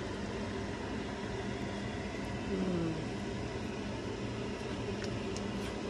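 A fan running with a steady mechanical hum. About two and a half seconds in, a person gives a short falling hummed 'mm', and there are a few faint clicks near the end.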